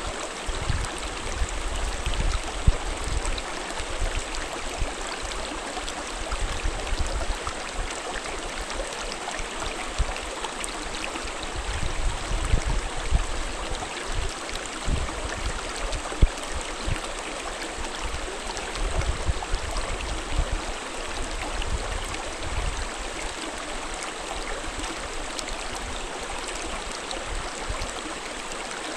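Mountain stream running over rocks, a steady rushing and babbling of water with irregular low rumbles underneath.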